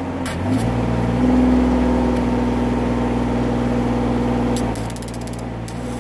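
Concrete mixer truck's engine running steadily. It picks up speed about half a second in and eases back near the end. Near the end a quick run of sharp crackles comes as the stick-welding arc is struck on the steel chute.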